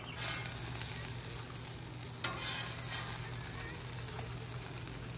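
Leftover grease sizzling on a hot flat-top griddle, a steady hiss, with a short louder noise about two seconds in.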